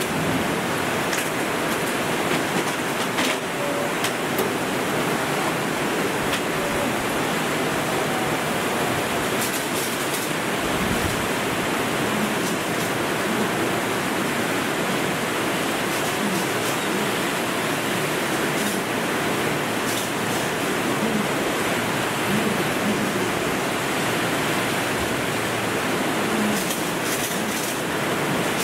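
Torrential cloudburst rain pouring down, a steady, dense hiss of heavy rain that does not let up.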